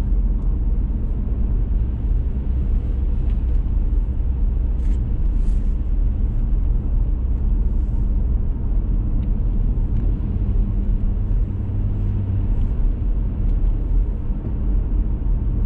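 Steady low rumble of a car's engine and tyre noise heard from inside the cabin while driving on an open road.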